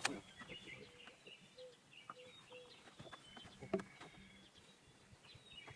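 Birds calling and chirping, faint, with short high chirps and a run of brief lower notes. Two sharp clicks stand out, one at the start and one a little before four seconds in.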